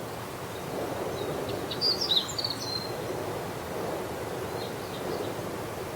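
A meadow bunting sings one short, rapid phrase of high chirping notes about two seconds in, with a fainter snatch a couple of seconds later, over a steady low background noise.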